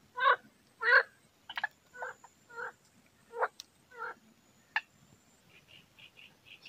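An animal calling: a run of short pitched calls about two a second, the first two loudest, tapering off into fainter, higher notes near the end.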